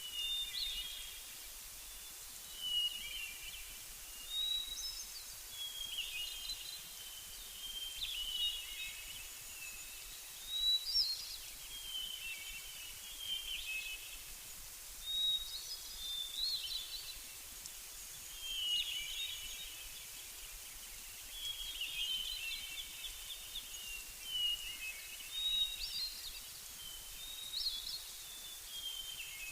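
Songbirds singing: short, quick chirping phrases repeated every second or two over a faint steady hiss.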